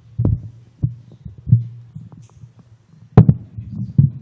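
Microphone handling noise: a desk microphone on its stand being gripped and moved, giving a series of low thumps and knocks, the loudest about three seconds in.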